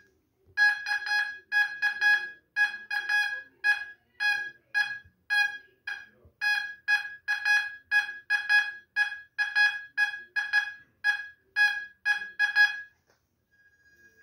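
Homemade Admiral VLF metal detector sounding its target tone: a string of short, high-pitched electronic beeps, about two a second, as a test target passes back and forth over the search coil. The beeps stop near the end, leaving a faint steady tone.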